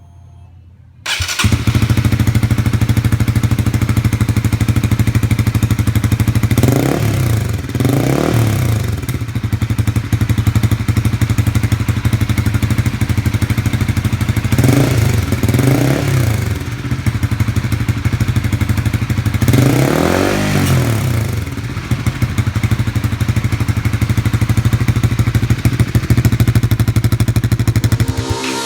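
Honda CB150R's single-cylinder engine, breathing through a Prospeed Black Series full-system aftermarket exhaust, starts about a second in and settles into a steady idle. It is blipped twice in quick succession, twice more a few seconds later, then given one longer rev before dropping back to idle.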